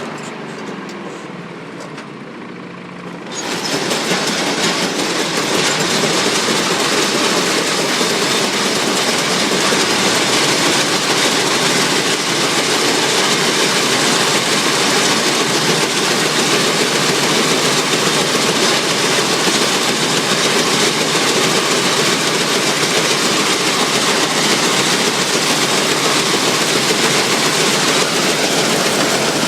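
Allis-Chalmers All-Crop 72 pull-type combine harvesting wheat: its threshing machinery runs with a loud, dense, steady mechanical noise. The noise jumps up sharply about three seconds in and then holds steady.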